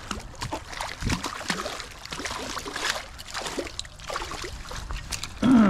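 Water splashing and sloshing, with scattered rustles and clicks, as a hooked channel catfish is brought in through the shallow floodwater at the bank.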